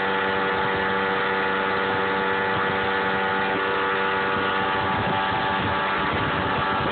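Yamaha 115 outboard motor running steadily at speed at a constant pitch, with water rushing past the hull.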